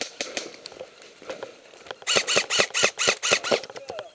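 Airsoft gun firing a rapid string of about ten sharp, ringing shots, roughly seven a second, starting about halfway through. Before the string there are scattered faint clicks.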